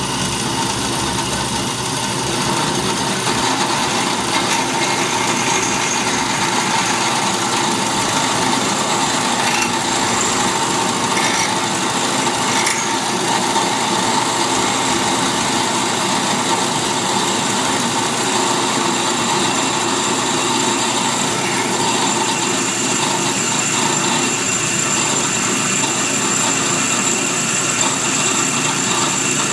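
Speedway Motors benchtop drill press running steadily while a quarter-inch bit drills through a cast metal skull air cleaner, with a steady motor hum and a high whine.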